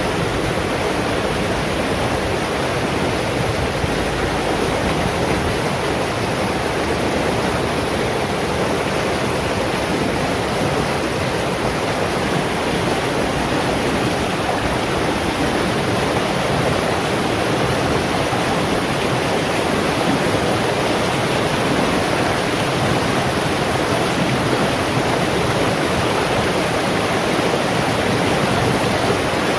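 A shallow, fast-flowing rocky stream rushing and splashing over boulders, a steady even rush of water.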